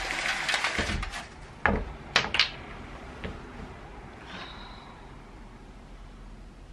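Rustling for about a second, then three sharp knocks, the last two close together, followed by a faint short high tone and quiet room noise.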